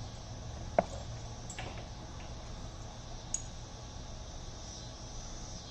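Small hardware parts being handled during an unboxing: one sharp click a little under a second in and a smaller tick a few seconds later, over a steady low hum.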